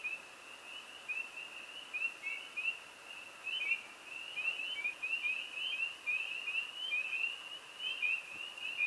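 A chorus of many frogs calling at once, short high chirps overlapping without a break, the loudest of them standing out every second or so.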